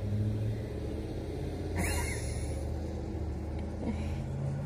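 Steady low engine drone of motor vehicle traffic, with a short high hiss about two seconds in.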